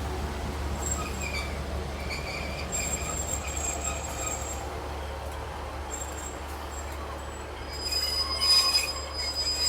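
Class 150 Sprinter diesel multiple unit at the platform over a steady low rumble, with high-pitched squealing that comes and goes and grows louder near the end.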